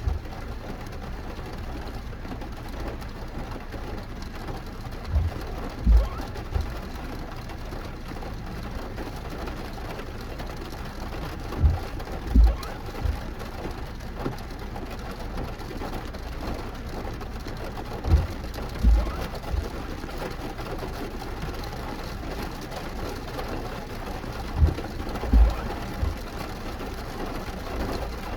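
Rain on a car and road noise, a steady hiss, with a pair of short low thumps about every six and a half seconds.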